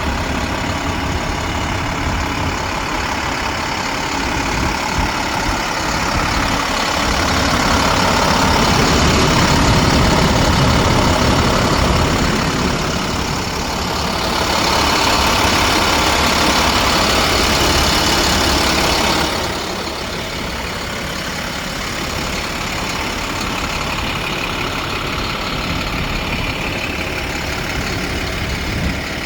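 Diesel engine of a vacuum excavator truck running steadily, with a broad rushing noise. The noise swells louder about a quarter of the way in and again around the middle, then drops back suddenly about two-thirds through.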